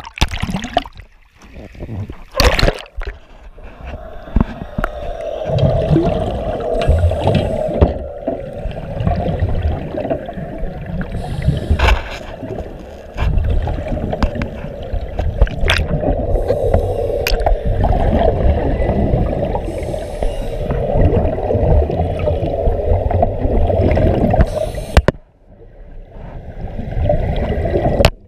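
Muffled underwater rushing and gurgling of water and air bubbles, heard through an action camera's waterproof housing. A few sharp knocks against the housing come through. The noise drops away abruptly near the end.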